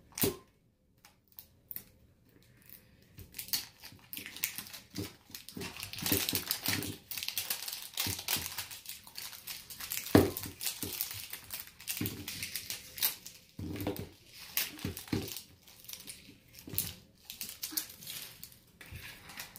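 Crinkling and tearing of the wrapping layers being peeled off an L.O.L. Surprise Under Wraps toy ball: many quick rustles and crackles, with a sharper crack about ten seconds in.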